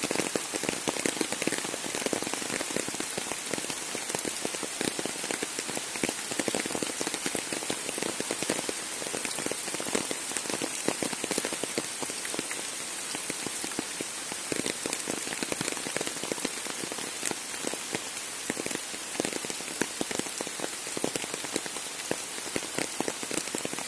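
Steady rain falling on trees, leaves and undergrowth: a dense, even hiss dotted with countless individual drop hits.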